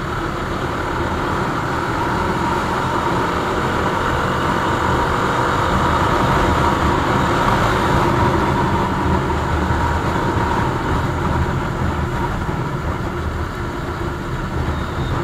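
Bajaj Dominar 400's single-cylinder engine running steadily at cruising speed on a highway, under continuous wind and road noise.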